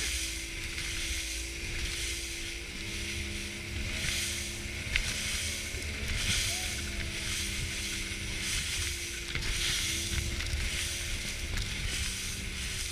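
Inflatable boat's outboard motor running at speed, its steady drone stepping up and down in pitch a few times, over the rush of water spray along the hull and wind hiss.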